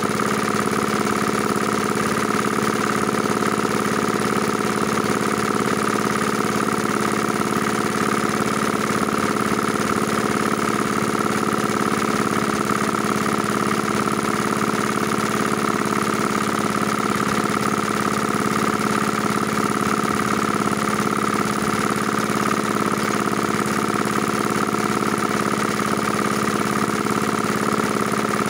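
Small single-cylinder diesel engine running steadily at a constant speed, driving a water pump while the pump is being primed with water.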